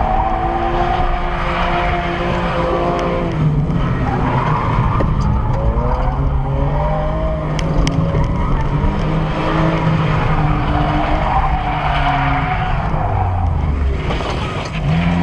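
Car engines revving up and down through drifts, with tyres skidding, heard from inside the following car. The revs rise and fall several times and climb sharply near the end.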